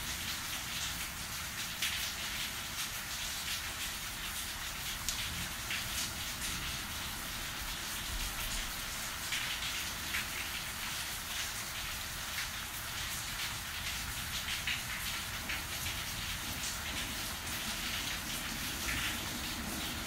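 Steady rain falling during a thunderstorm: a dense, even hiss with many separate drop hits through it.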